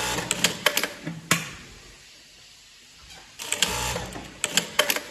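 Industrial lockstitch sewing machine with automatic thread trimmer stitching in two short bursts with a quieter pause between. The first burst stops with a sharp clack, the trimmer cutting the thread as the machine stops.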